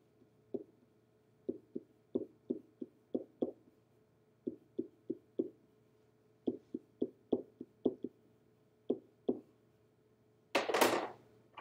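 Pen tip knocking against an interactive whiteboard while letters are written by hand: about two dozen short, dull taps in uneven clusters, one for each stroke touching down. Near the end there is a louder rubbing noise lasting about half a second.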